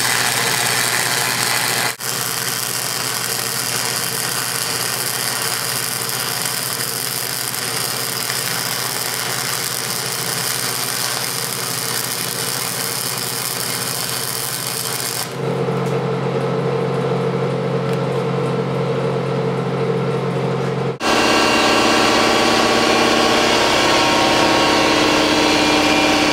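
Flux-core wire welder running beads on steel: a steady crackling, frying hiss over a low electrical hum, broken by edits. For the last several seconds it gives way to a louder steady hum of several tones that shifts once, from an unclear source.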